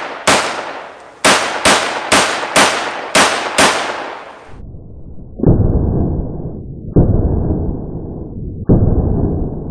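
Blank-firing pistol shots: a quick run of about seven sharp cracks roughly half a second apart over the first four seconds or so. Then three duller, muffled bangs about a second and a half apart, each fading slowly.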